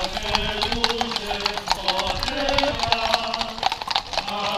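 Hooves of many ridden horses clip-clopping at a walk on an asphalt road, a dense stream of overlapping hoof strikes. Men's voices sing a slow hymn over them, holding each note before stepping to the next.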